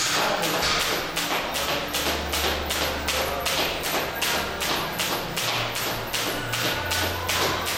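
Jump rope skipping: the rope slaps the floor and the feet land in a steady, even rhythm, a little under three skips a second.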